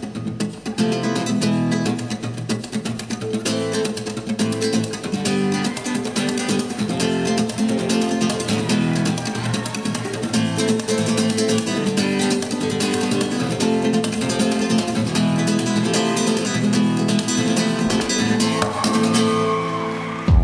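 Flamenco-style acoustic guitar music with fast, driving strumming, played as a gymnastics routine's floor music.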